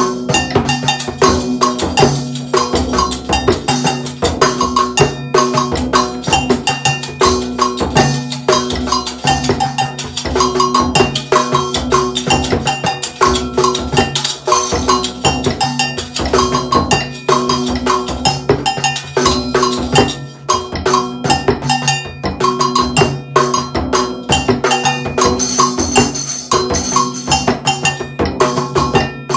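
A layered Brazilian rhythm on frame drums. A tar frame drum plays a surdo pattern in deep repeating tones, agogo bells ring in a steady pattern of bright strokes, and a jingle tambourine plays the melody line over the top.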